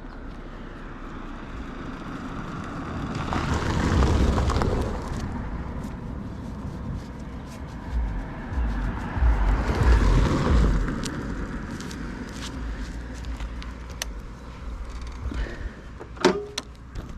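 Motor vehicle noise: a low engine rumble that swells up and dies away twice, about six seconds apart, like vehicles passing, with a few sharp clicks near the end.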